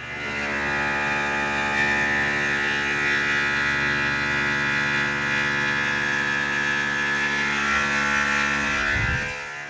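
Tormach CNC mill cutting aluminium with a Shear Hog indexable cutter and chattering: a loud, high ringing tone that starts with the cut and dies away about nine seconds in. The cut is more aggressive than intended, and the chatter is put down to the part not being clamped down well enough.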